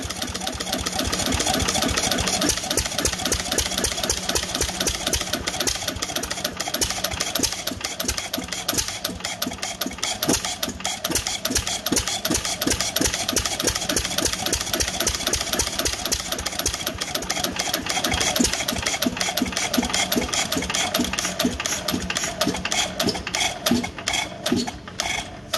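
Independent Harvester 2 hp side-shaft stationary engine running, with a rapid, even clatter of its valve gear and igniter.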